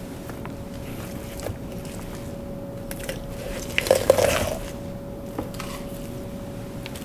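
Kitchen work noise over a steady electric hum: scattered sharp clicks, then a short cluster of clattering, crackly hits about four seconds in.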